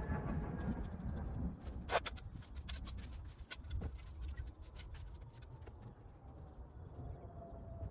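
A hand tool scraping and clicking in the soil of a flower border as it is dug over, with one sharper knock about two seconds in and a low rumble underneath.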